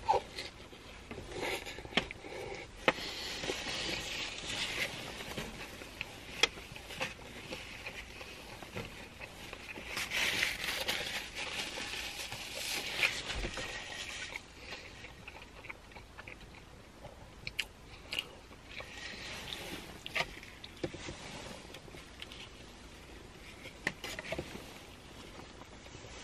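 A person chewing and biting into a burger close to the microphone, with crunches and wet mouth clicks coming irregularly.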